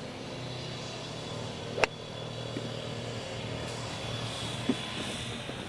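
Golf cart running with a steady low hum, and a single sharp click a little under two seconds in.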